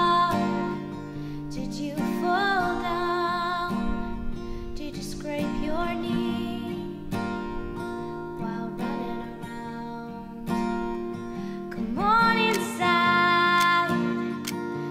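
Soundtrack music: strummed acoustic guitar under a sung melody, its phrases held with vibrato.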